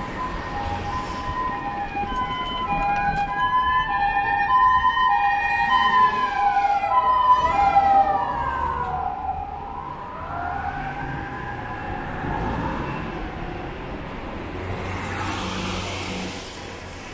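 Emergency vehicle sirens passing: a two-tone hi-lo siren alternating steadily, with a rising and falling wail over it. The pitch drops as they go by about halfway through, and the sound then fades.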